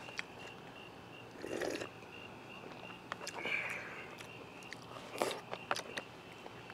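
Quiet eating sounds: chewing a mouthful of hot pot meat, with a few light clicks of wooden chopsticks against the plastic bowl about five seconds in. An insect chirps steadily and high in the background.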